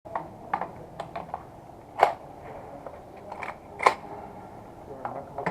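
Irregular sharp clicks and light knocks of gear being handled, the loudest two about two seconds in and just before four seconds, over a faint background hiss.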